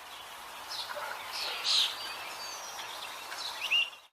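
Birds chirping: several short, high calls with quick pitch glides over a steady hiss, the loudest about two seconds in.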